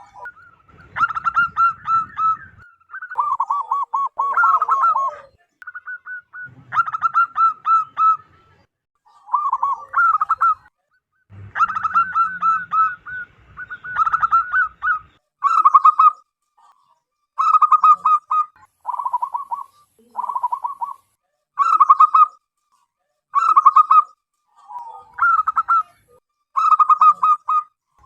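Zebra dove (perkutut) cooing: a loud series of short, rapid rolling coo phrases, one every one to two seconds.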